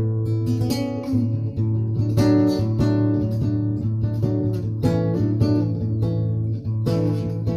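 Acoustic guitar music: plucked and strummed chords over a held bass note.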